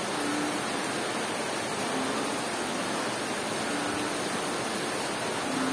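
Steady, heavy rain with a frog calling through it: four short low notes, one about every two seconds.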